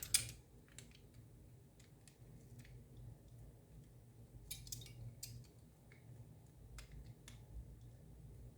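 Scattered light clicks and taps of small plastic and metal parts being handled, with a short cluster of sharper clicks about halfway through, as a battery contact and wire are fitted into an Xbox controller's battery compartment. A faint low hum runs underneath.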